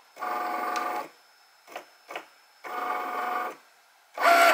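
Cricut Maker cutting machine's motors whirring in three short runs, the last one briefest and loudest, with a couple of faint clicks between, as it moves its carriage to scan the corner marks of a sticker sheet before cutting.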